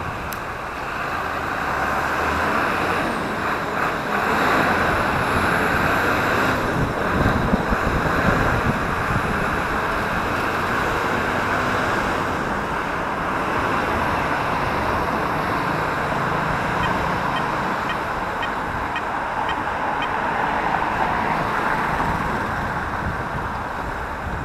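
Steady wind noise on a bicycle-mounted camera's microphone at riding speed, mixed with the noise of car traffic passing close alongside.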